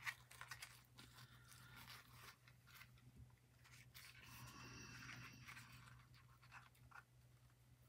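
Faint rustling and crinkling of a crumpled white tissue handled in the fingers, with scattered small clicks, a little busier about halfway through.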